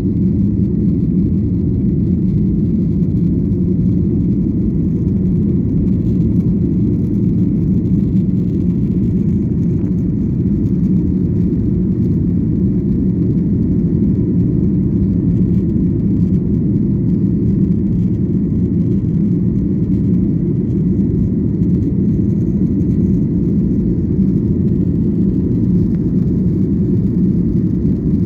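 Airliner's jet engines and rushing air heard from inside the cabin: a steady, deep noise that holds level throughout.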